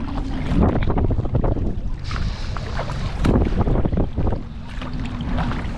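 Wind buffeting the microphone in a heavy low rumble, over water splashing and sloshing around a sea kayak, with irregular sharp splashes and a brief rushing hiss about two seconds in.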